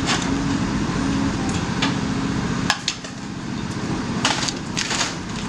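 Caterpillar 336E excavator's diesel engine working under load as its sorting grab tears at a building's roof and upper wall, with cracks and crunching of breaking masonry and timber. A sharp crack comes about halfway through, after which the engine drops back, and a few louder cracks follow near the end.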